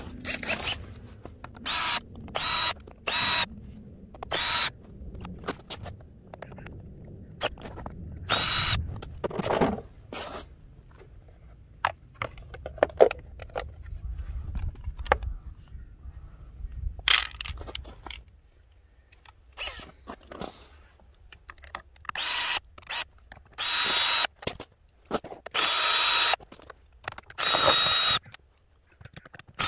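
Yellow cordless drill-driver whirring in about a dozen short bursts as it spins out the cover bolts on a Honda Dio scooter's air filter housing and variator side. Small clinks of bolts and parts being handled come in between the bursts.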